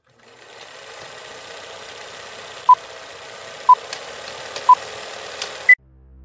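Old-film countdown leader sound effect: a steady hiss with scattered crackles and clicks, three short beeps about a second apart, then a higher-pitched final beep, after which it cuts off abruptly.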